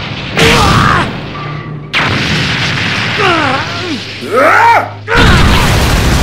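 Dubbed cartoon fight sound effects. A loud hit lands about half a second in, followed by a rushing noise with pained, gliding cries. A heavy crashing boom comes near the end.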